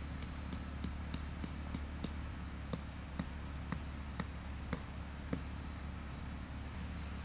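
A run of sharp clicks, about three a second and slowing, that stops about five seconds in, over a steady low hum.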